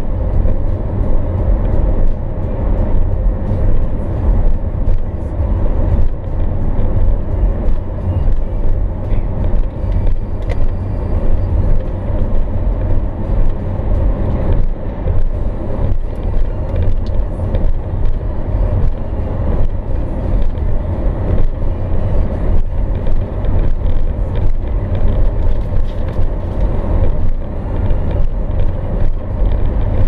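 Inside a car's cabin at highway speed: a steady low rumble of tyres on the road and the running engine.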